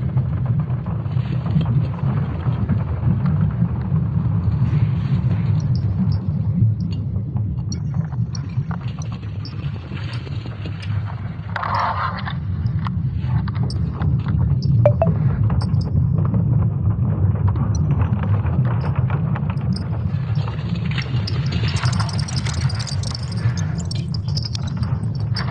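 Sonified Earth's magnetic field data: a steady deep rumble with scattered crackling and creaking, and a few brief higher swells.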